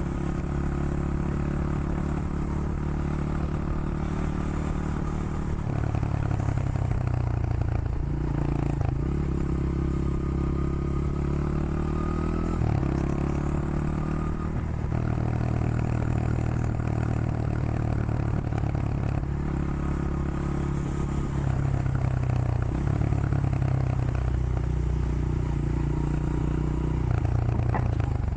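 Honda XR100 motard's air-cooled single-cylinder four-stroke engine running while riding, its note stepping up and down several times as the engine speed changes.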